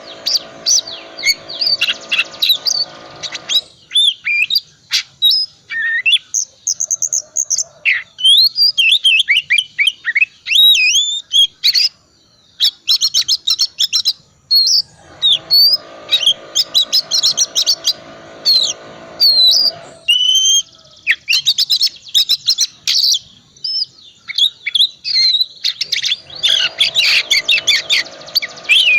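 Oriental magpie-robin (kacer) singing a long, varied song of rapid whistles, trills and chattering phrases in bursts with short pauses. Some passages carry a lower, harsher buzzing layer beneath the whistles.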